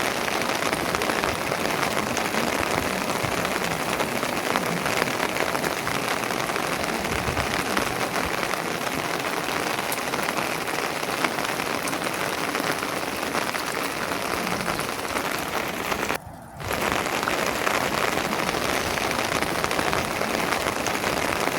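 Steady heavy rain, a dense patter of many small drops. The sound drops out briefly about sixteen seconds in, then returns.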